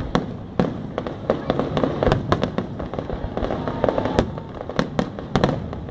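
Aerial fireworks shells bursting in a rapid, irregular series of sharp bangs, a dozen or more in a few seconds.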